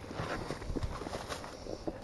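Irregular soft knocks, thumps and rustling of someone moving about and handling snow-covered trash and cardboard boxes.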